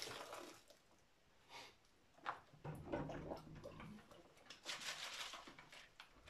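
Plastic PET bottles being rinsed in a plastic tub of water: several short bursts of water sloshing and splashing as a bottle is dipped, filled and emptied.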